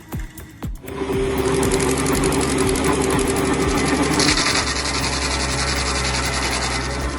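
A few short booms falling in pitch, then from about a second in a small engine running steadily with a fast, fine rattle.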